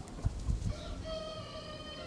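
A rooster crowing: one long, steady-pitched crow begins about a second in and is still held at the end. Before it come a few low thumps.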